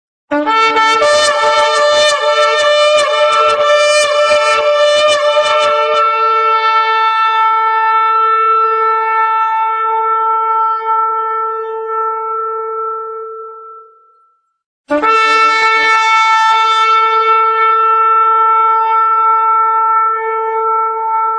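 Shofar blown in two long blasts. Each opens with a rough run of short broken notes, then settles into one held tone; the first fades out about 14 seconds in, and the second starts about a second later.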